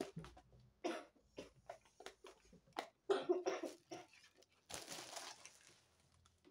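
Plastic food tub being opened by hand: scattered clicks and taps of the lid, then a crinkly peeling rustle about five seconds in.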